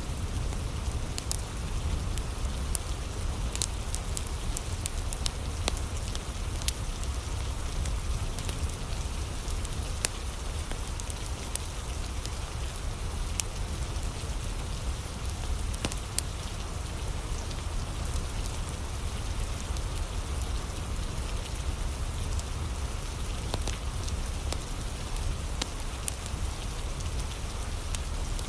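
Steady rain falling, with a deep rumble underneath and a wood fire crackling in scattered sharp pops.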